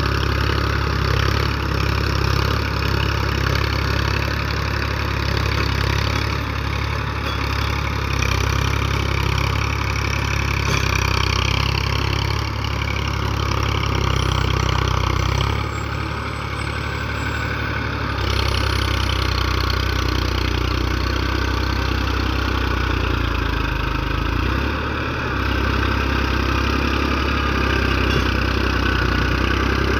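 Farm tractor's diesel engine running steadily under load as it pulls a rotary tiller through grass and soil, easing off briefly a little past the middle.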